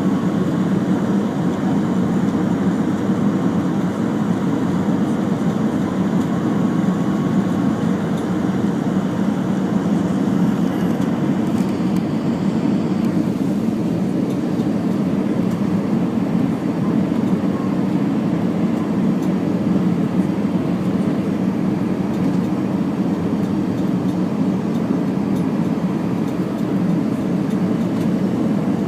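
Steady cabin roar of an Airbus A319 airliner in flight, the jet engines and airflow heard from inside the cabin. The higher hiss eases a little about twelve seconds in.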